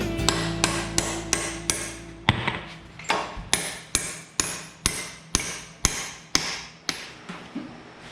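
A hammer striking metal in a steady series of about two blows a second, each with a short metallic ring. A steady hum underneath stops about two seconds in.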